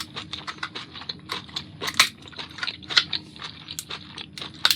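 Cooked lobster shell being cracked and picked apart: a run of irregular sharp clicks and crunches, loudest about two seconds in and again near the end.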